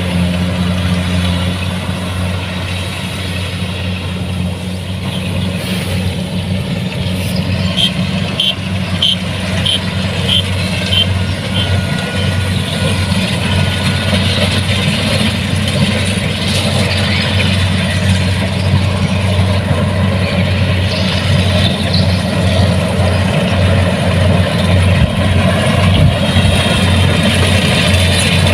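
Kubota DC-70 Plus combine harvester's diesel engine running steadily under harvesting work. About eight seconds in, a series of short high beeps sounds about twice a second for some four seconds.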